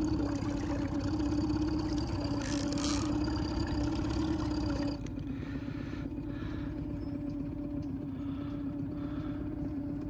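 Boat motor running steadily with a constant hum, dropping in level about halfway through.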